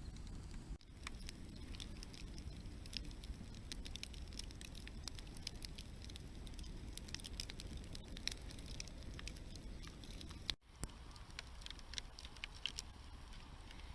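Wood fire crackling, with frequent small sharp pops over a steady low rumble.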